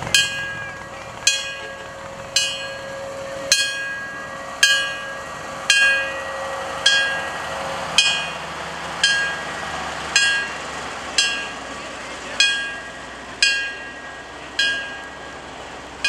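Vintage fire engine's bell struck at an even pace, about once a second, each clear ring dying away before the next.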